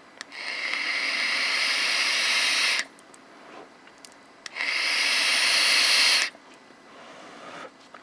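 A vaper taking a long draw on a Geek Vape Aegis Boost pod mod and blowing out the vapor: two long, even, airy hisses, the first about two and a half seconds, the second about two seconds, with a short quiet gap between.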